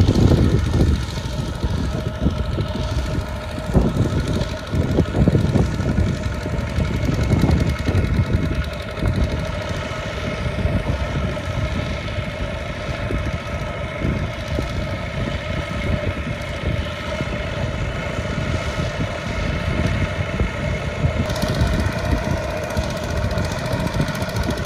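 Two-wheel walking tractor's single-cylinder diesel engine chugging steadily under heavy load as it pulls a loaded rice trailer through deep mud.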